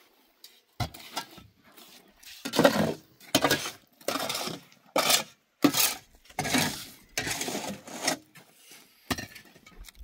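Repeated clattering of hard objects being handled: about ten separate knocks, clinks and short scrapes at an uneven pace.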